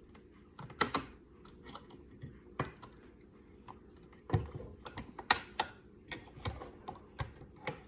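Irregular sharp plastic clicks and knocks as a bearing is pried and pushed into the gear housing of a Pentair Racer pool cleaner, the loudest about halfway through.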